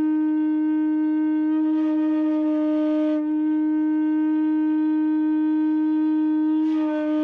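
A large wooden Renaissance recorder holding one long, steady low note, blown with a widened mouth cavity and slowed air to keep the wolf-tone warble from coming in. The tone turns breathier for a stretch from about a second and a half in, and again near the end.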